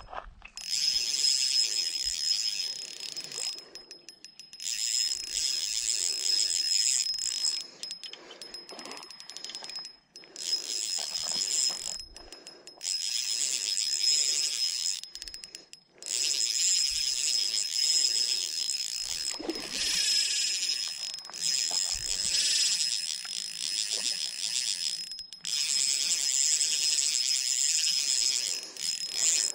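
Shimano 1000-series spinning reel cranked to retrieve line, a steady high whir that stops short several times and starts again as the lure is worked in.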